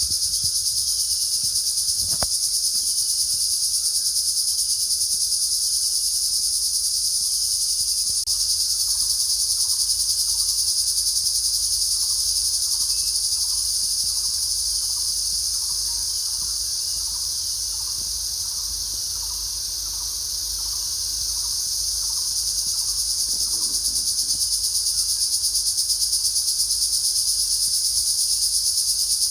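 A chorus of singing insects: a continuous, high-pitched, rapidly pulsing trill that eases slightly in loudness past the middle.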